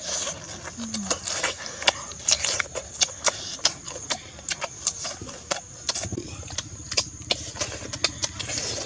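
Close-up chewing and lip-smacking: a rapid, irregular run of wet smacks and clicks from people eating with their mouths near the microphone. A low steady hum joins about six seconds in.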